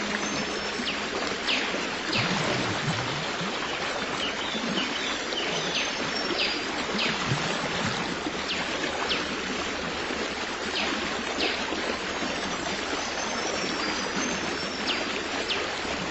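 Running stream, a steady rush of water, with birds giving many short, high, falling chirps scattered through it.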